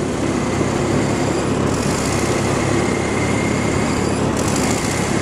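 Vintage Ford N-series tractor's four-cylinder flathead engine running steadily under load as it pulls a disc harrow through worked soil.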